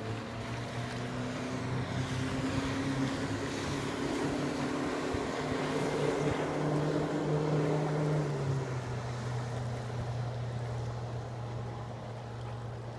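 Motorboat engine running, its pitch climbing over several seconds and then dropping back about two-thirds of the way through.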